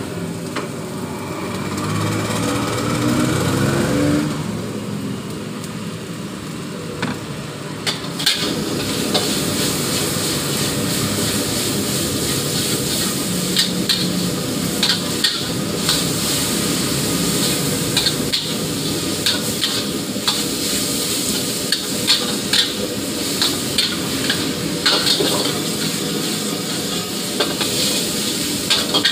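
Flat rice noodles sizzling in a steel wok while a long metal spatula stirs and tosses them, scraping and clanking against the pan. A rising tone is heard over a lower sizzle in the first few seconds, and the sizzle and spatula clanks grow stronger about eight seconds in.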